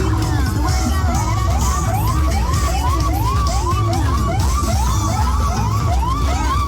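A paredão car sound system playing bass-heavy music with a siren-like whoop, a quick rising tone repeating about two and a half times a second.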